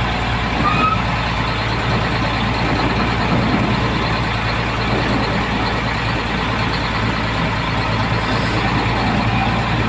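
Heavy truck engine running steadily, with a brief high squeak about a second in.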